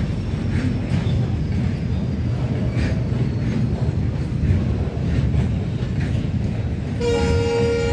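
Goods train rolling past: the steady rumble of freight wagons' wheels on the rails, with a few faint clicks. A steady pitched tone comes in for roughly the last second.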